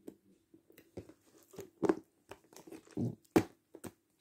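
Sticky glitter slime being pressed and kneaded by hand on a plastic tray: irregular wet pops and clicks as it sticks to and pulls off the fingers, the loudest about two and three and a half seconds in.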